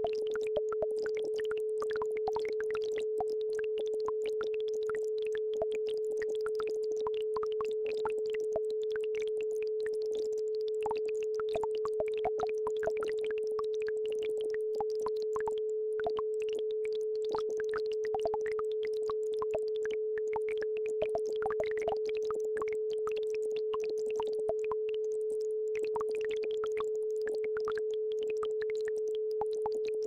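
A synthesized brainwave-entrainment tone holding one steady mid pitch, with no change in pitch or level, over faint babbling-brook water trickling and splashing.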